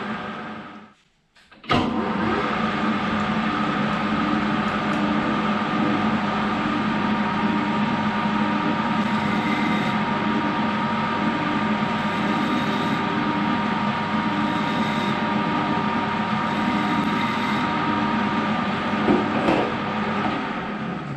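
Metal lathe running steadily while cutting a piston ring groove in an aluminium piston: an even mechanical hum with a few steady whining tones from the motor and gearing. The sound breaks off for a moment about a second in, and there is a brief louder moment near the end.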